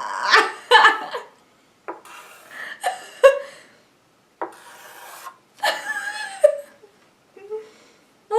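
People laughing in breathy, wheezy bursts, with short voiced peals between gasps of air.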